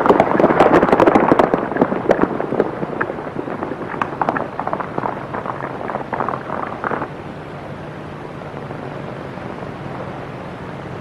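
Hoofbeats of horses galloping away, a dense clatter that thins and fades over about seven seconds. After that only the steady hiss of an old film soundtrack remains.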